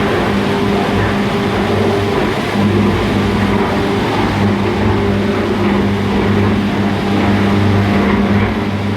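Ladle furnace in operation: a loud, steady industrial noise with a low hum running through it.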